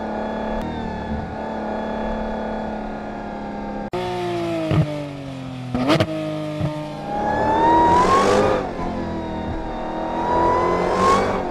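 Sports car engine idling steadily. After a sudden cut about four seconds in, its note drops, a few sharp clicks follow, and it revs twice, each rev rising in pitch.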